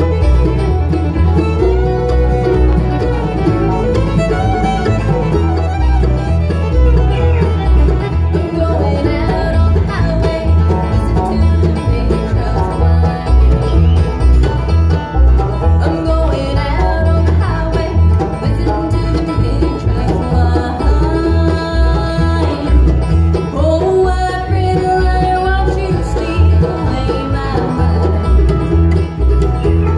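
Live bluegrass band playing an up-tempo song: five-string banjo, fiddle, acoustic guitar, mandolin and upright bass, with a steady bass beat under the banjo's picking.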